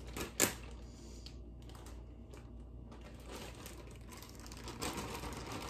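Plastic steamer bag of hot broccoli crinkling as it is pulled open and handled: a couple of sharp crackles right at the start, then quieter, then denser crinkling building near the end.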